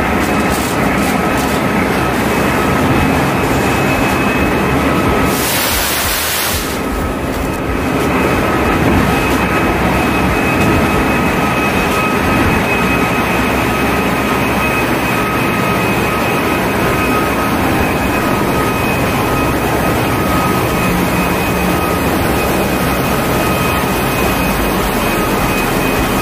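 Loud, steady din of a tanker's engine-room machinery running, with a thin steady high whine over it. A brief hiss about six seconds in.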